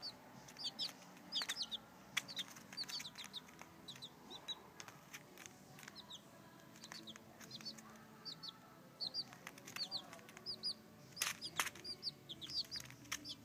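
Domestic chicken chicks peeping: short, high, falling chirps, often two or three in quick succession, repeated throughout. Sharp taps of beaks pecking at newspaper come in between, loudest twice in quick succession about 11 seconds in.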